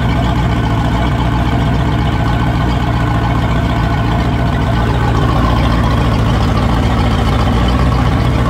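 Ford V8 of an OMC Cobra sterndrive idling steadily, run out of the water on a garden hose, with its cooling water splashing out of the exhaust.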